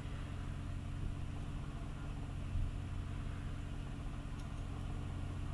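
A steady low hum under quiet room tone.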